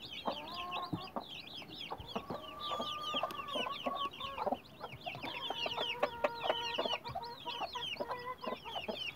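Newly hatched chicks peeping continuously in quick, high, falling chirps, with the broody hen making low, drawn-out clucks beneath them.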